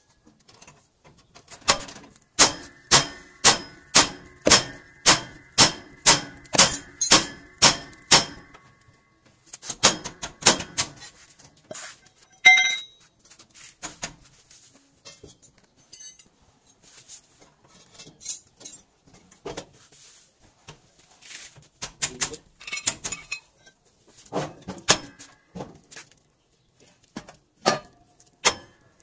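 A hammer striking steel on a truck's front-axle steering parts. It lands a run of about fourteen even blows, roughly two a second, each ringing metallically. Irregular clanks of metal tools follow, with one loud ringing clang about twelve seconds in and scattered knocks near the end.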